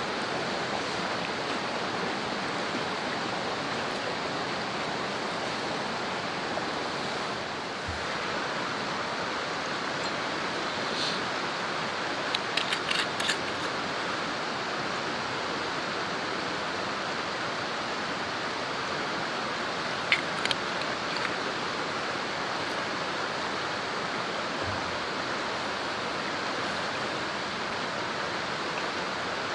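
Steady rushing of flowing water, like a stream, running evenly throughout. Over it come a quick cluster of light clicks about twelve seconds in and two more sharp clicks about twenty seconds in, as a glass bottle and a small steel cup are handled.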